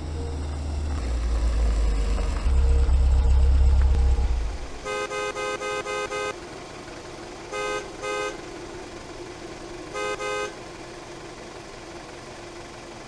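Car horn sounding in short toots: a quick string of about seven, then two pairs a couple of seconds apart. A loud deep rumble fills the first few seconds and cuts off just before the honking starts.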